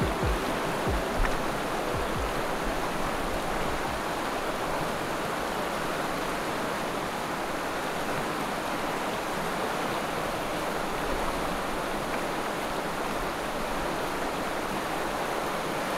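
Fast, turbulent river rushing steadily over rocks, with a few low thumps in the first two seconds.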